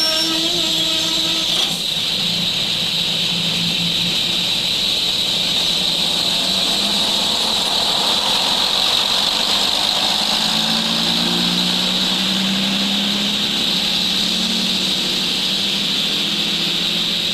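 Diesel locomotive engine running steadily under a constant hiss, its low hum wavering up and down in pitch in the second half.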